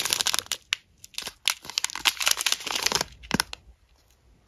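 Small clear plastic bags of square resin diamond-painting drills crinkling as they are handled, a run of short crackles that fades out about three and a half seconds in.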